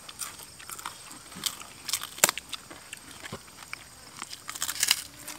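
Eating sounds: scattered crunches, crackles and clicks of people picking apart and chewing crispy battered fried tilapia with their hands. The sharpest crack comes about two seconds in, with a quick cluster of crackles near the end.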